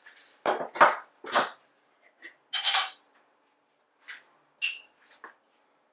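A spoon tapping and scraping against a dish: a series of short, separate clinks and scrapes as spice powder is measured out and added.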